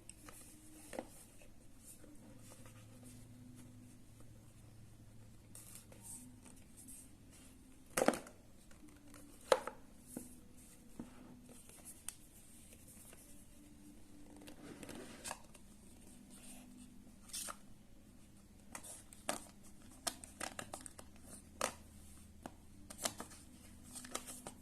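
Smartwatch packaging being handled and opened: rustling and tearing of paper or plastic wrap, with scattered sharp clicks and knocks. The two loudest knocks come about eight and nine and a half seconds in, and a quicker run of clicks comes near the end.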